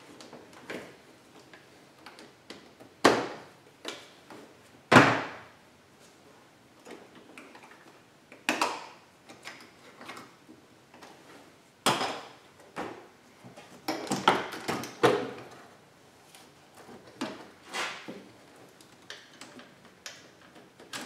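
Plastic clicks, snaps and knocks as a car door's interior trim pieces and window switch panel are pried loose with hand tools: about a dozen sharp, irregularly spaced sounds, the loudest about 3 and 5 seconds in and several close together around two-thirds of the way through.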